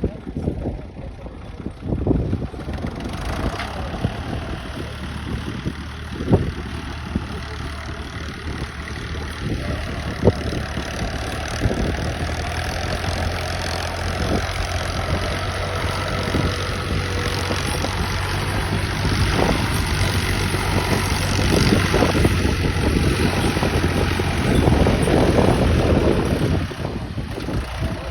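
Al-Ghazi tractor's diesel engine running steadily while ploughing, getting louder partway through and easing off near the end, with a few sharp knocks.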